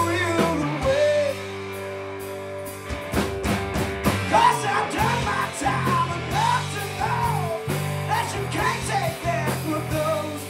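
Rock band playing live: two electric guitars, electric bass and drum kit. From about four seconds in, a lead line of sliding, bending notes runs over the beat.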